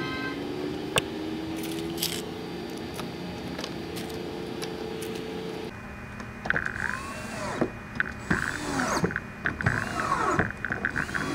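Cordless drill driving a screw into a rubber well nut to fasten a Scotty mount to a plastic kayak deck, in a series of short trigger pulses, the motor whirring up and slowing with each one. The first half holds only a quieter steady background.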